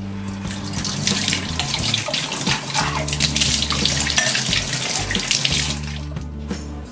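Kitchen tap running over a copper tumbler as it is rinsed by hand in the sink, the water splashing off the metal. The water stops about six seconds in, leaving a soft music bed.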